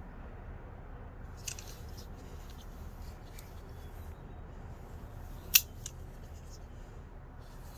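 Light clicks and rattles of a small utility knife being handled and turned over, with one sharp click about five and a half seconds in.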